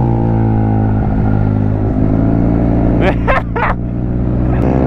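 Engine drone of a Yamaha maxi-scooter at a steady cruising speed, heard from the rider's mounted camera, its pitch easing slightly at the start and then holding even. A few short chirping sounds about three seconds in.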